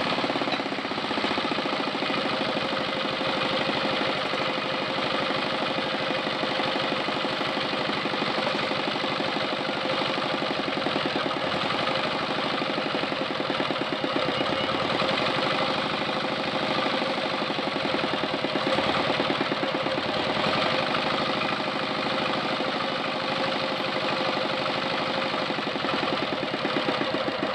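R180 single-cylinder diesel engine (8 hp) running at a fast, steady speed with an even rapid knock. It will not drop to idle: the idle speed is too high, which the mechanic sets out to cure by adjusting the flyweight governor ('kupu-kupu').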